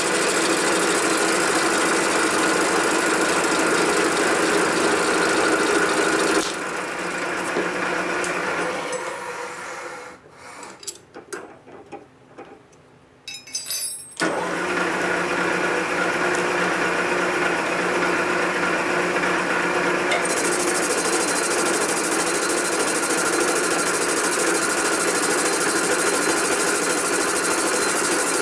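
Vertical milling machine spindle running a boring head that cuts down the welded aluminium exhaust spigot of a Harley-Davidson panhead cylinder head, a steady machining noise. About six seconds in it drops off and fades to quiet with a few clicks and knocks, then the machine starts up again around fourteen seconds and runs steadily on.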